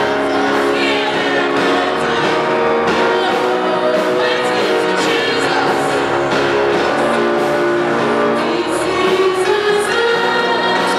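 Gospel music: singing voices over instrumental accompaniment, held at a steady level.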